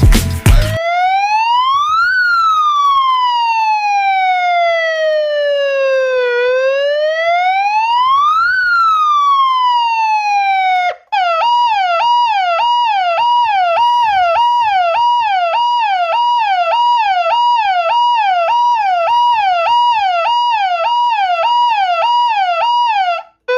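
Electronic siren tones from an Ahuja PA amplifier: a slow wail rising and falling over several seconds, then about eleven seconds in switching to a fast yelp that repeats about two and a half times a second, cutting off near the end.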